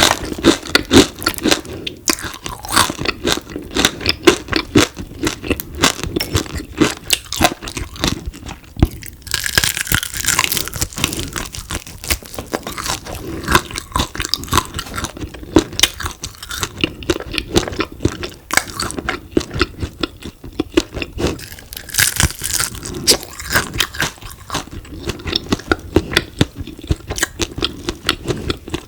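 Crunching and chewing of crispy deep-fried frog: a dense run of crackly bites and chews, with brighter, crispier crunching about ten seconds in and again about twenty-two seconds in.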